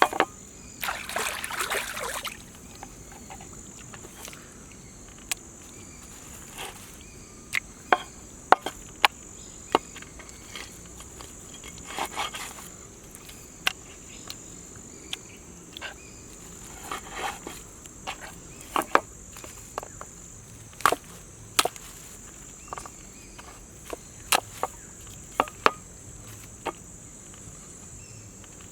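Insects keep up a steady high trill while many sharp knocks and clicks sound at irregular intervals, with a few short rustling bursts, the first about a second in.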